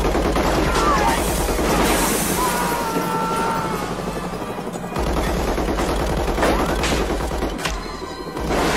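Sustained machine-gun fire from a helicopter's door-mounted gun, with a low steady rumble beneath. The fire eases off briefly about four seconds in and again near the end.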